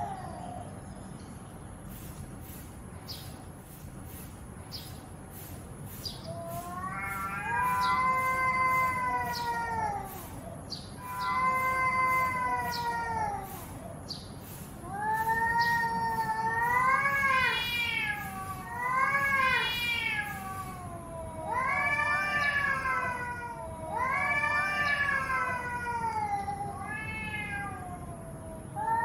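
Cat yowling in an aggressive standoff: about seven long, drawn-out yowls, one after another from about a quarter of the way in, each wavering up and down in pitch. This is the warning yowl of a cat squaring up to a rival, back arched.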